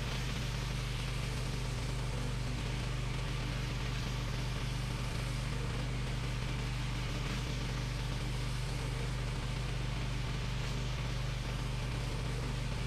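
Engine-driven pressure washer running at a steady hum, with the continuous hiss of a surface cleaner spraying water across concrete.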